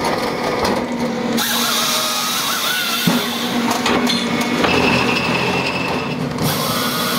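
Power saw cutting wood: loud machine noise with a wavering whine, changing abruptly about a second and a half in and twice more near the end.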